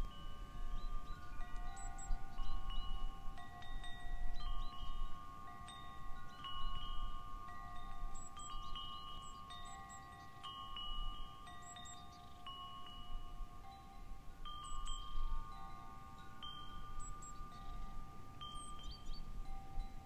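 Wind chimes ringing in the wind, struck at irregular moments so that several long, overlapping tones sound together. A low gusty rumble of wind lies beneath them.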